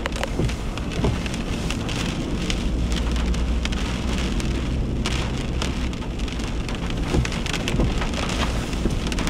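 Wind-driven rain pattering on a truck's windshield and body, heard from inside the cab, with many small drop hits over a steady low rumble.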